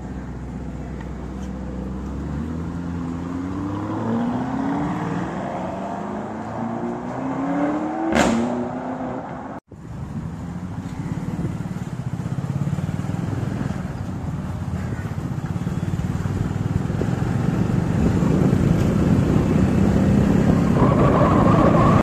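Vehicle engines accelerating, the pitch rising in several steps, then a brief dropout about ten seconds in. After it comes a steady mix of engine, road and wind noise that grows louder toward the end.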